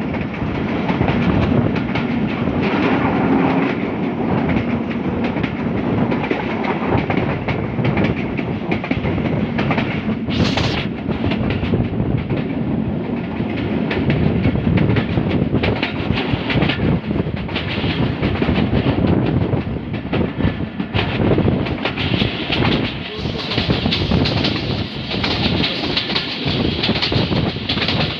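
Passenger train running along the track, heard from inside the carriage: a steady rumble of wheels on rails with a rapid run of clicks and knocks. A brief high hiss comes about ten seconds in.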